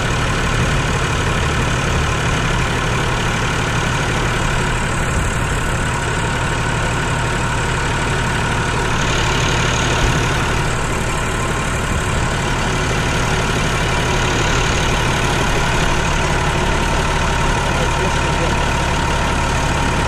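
Diesel tractor engine idling steadily close by.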